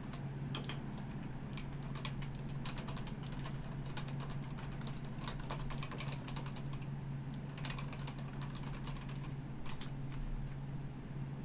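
Typing on a computer keyboard in irregular bursts of key clicks, over a steady low hum.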